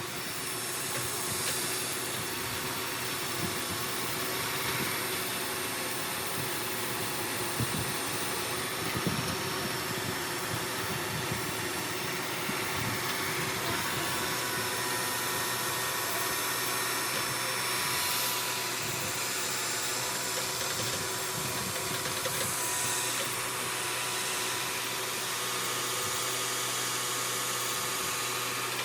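CNC knee mill cutting aluminum with a 3/4-inch three-flute carbide end mill: a steady whir with a strong hiss.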